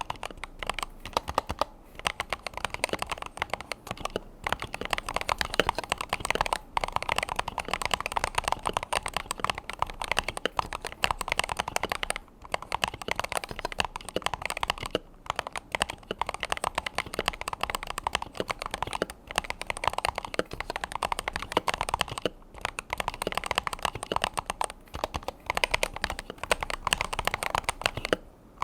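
Typing on a Razer Huntsman V3 Pro TKL 8K keyboard with analog optical switches: a fast, continuous run of key clicks and clacks, broken now and then by short pauses between bursts.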